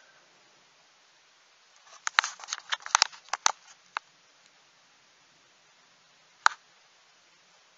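A quick run of sharp clicks and taps over about two seconds, then a single click a few seconds later, over a faint steady hiss.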